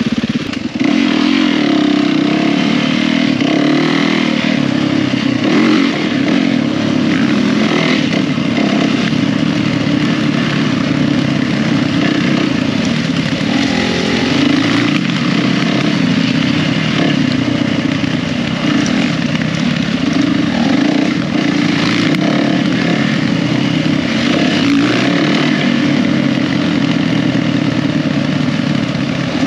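Yamaha WR450F single-cylinder four-stroke dirt bike engine running under way, heard from on the bike, its throttle held fairly even with only a brief drop under a second in.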